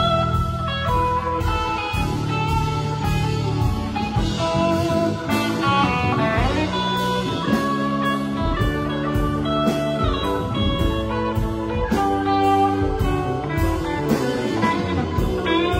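Live rock band playing an instrumental blues-rock jam: a lead electric guitar with bent notes runs over keyboards, a second guitar and a drum kit with steady cymbal strikes.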